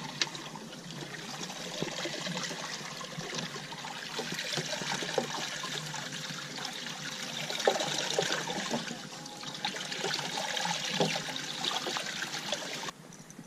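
Water trickling and splashing steadily, with scattered small knocks; it cuts off abruptly near the end.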